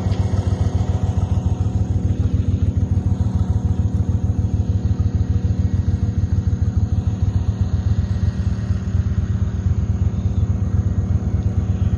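Small gasoline engine on a bowfishing boat running steadily at a constant speed: an even, low drone that does not change in pitch.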